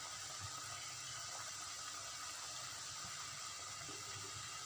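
Faint, steady hiss with soft bubbling from rasam heating in an open pan, just starting to froth and bubble at the edges, short of a full boil.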